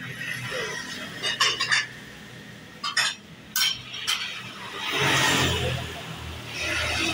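Metal spatulas clinking against a flat steel teppanyaki griddle: several sharp clinks in the first four seconds. About five seconds in, a louder rush of noise with a low rumble swells and fades, like a vehicle passing.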